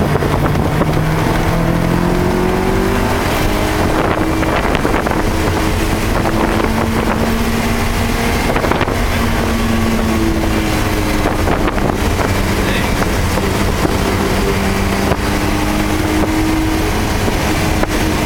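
Car engine heard from inside the cabin during a lapping session on a wet track. Its note rises and falls steadily as the car accelerates and slows through the corners.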